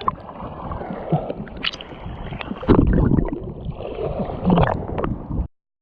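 Water sloshing and rushing against a GoPro action camera's microphone, with a few knocks and splashes, cut off suddenly near the end.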